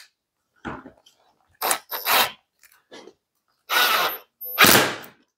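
Cordless impact driver running in several short bursts, each under a second, driving self-drilling Phillips flat-head screws through plastic wiring duct into the panel, with a thin high whine over the longer bursts.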